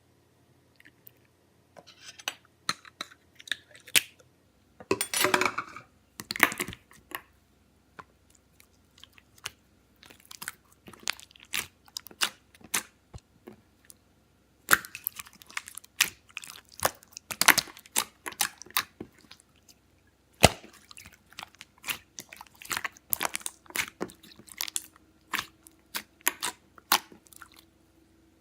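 Close-up crunching and crackling in irregular clusters of sharp clicks. It begins about two seconds in, pauses briefly twice, and gets denser in the second half.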